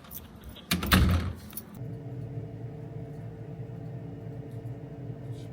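A short, loud clatter about a second in, then a steady low machine hum with a faint held tone.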